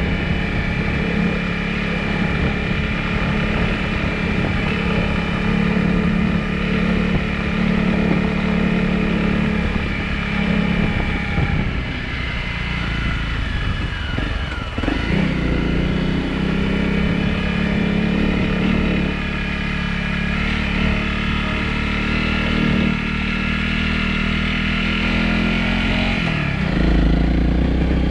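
Honda CRF250 Rally's single-cylinder engine running steadily under throttle. About twelve seconds in the rider eases off and the pitch falls, and about fifteen seconds in it picks up again.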